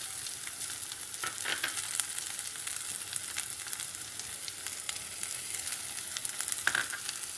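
Chopped vegetables sizzling in hot oil in a kadai, a steady frying hiss, with a couple of brief louder rustles as more chopped vegetables are tipped into the pan.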